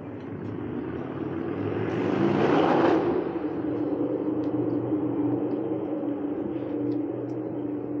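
A car driving past on the street, its tyre and engine noise swelling to a peak about three seconds in and cutting off sharply, followed by a steady low engine hum.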